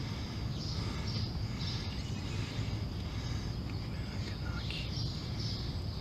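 Outdoor background ambience: a steady low noise with faint bird chirps now and then.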